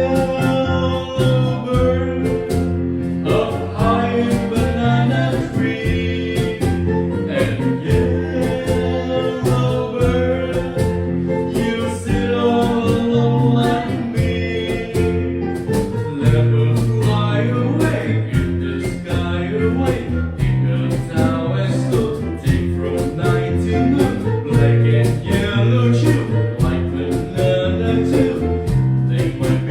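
Music: a singing voice over strummed guitar, keeping a steady beat.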